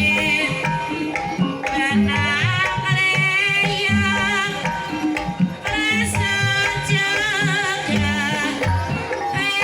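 Banyumasan gamelan music accompanying an ebeg horse-dance: hand drums (kendang) beating a steady pattern under held bronze-instrument notes, with a wavering singing voice carrying the melody.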